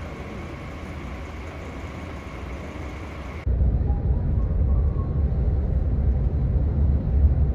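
Steady hum of a coach waiting at a street bus stop, then an abrupt change about three and a half seconds in to the louder, deep rumble of road and engine noise inside a moving coach on the motorway.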